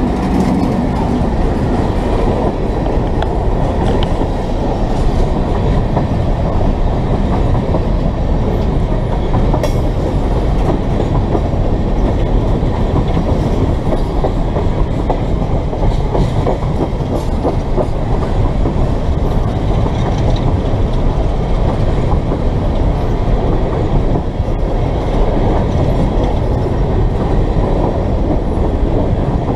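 BNSF coal train rolling past close by: a steady rumble and clickety-clack of the coal gondola cars' wheels over the rail joints. The droning of the trailing diesel locomotives fades out about a second in.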